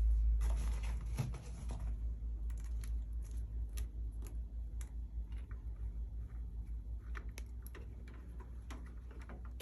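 Light scattered clicks and taps of hands handling power-cord wires and their connections, over a steady low rumble that is louder in the first couple of seconds.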